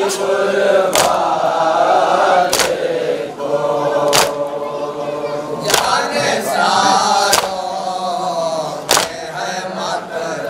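Men chanting a noha (Shia mourning lament) in unison with a lead voice, punctuated by sharp, evenly spaced chest-beating slaps (matam) about every one and a half seconds.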